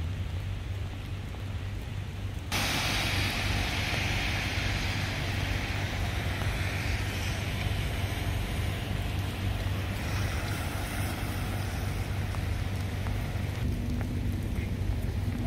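Road noise inside a moving car: a steady low rumble, with a rushing hiss that comes in abruptly and much louder about two and a half seconds in, then holds steady.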